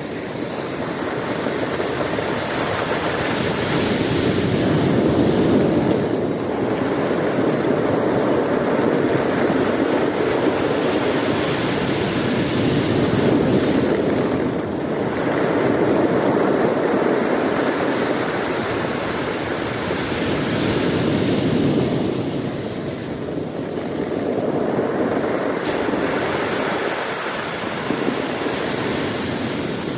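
Sea waves breaking and washing on the shore, the surf surging and easing in swells every few seconds.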